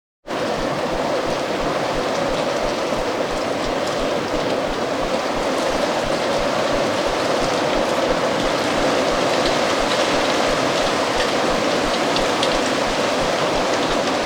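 Strong autumn wind blowing steadily, with faint crisp ticks of dry leaves moving on the ground.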